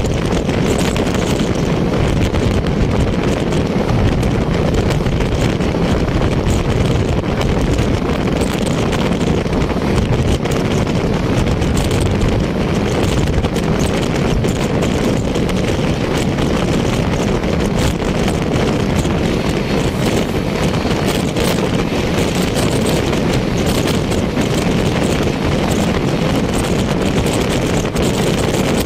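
Indian Railways express coach running at speed: a steady rush of wheels on the rails with a faint running clatter, and wind buffeting the microphone held out of the coach.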